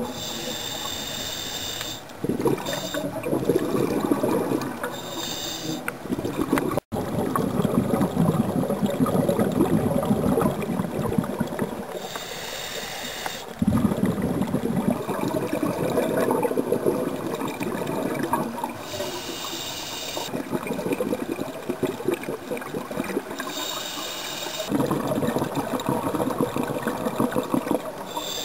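Scuba breathing heard underwater through a regulator. Exhaled bubbles gurgle and crackle, and every five to seven seconds a short hiss comes as the diver inhales. There is a brief cut-out about seven seconds in.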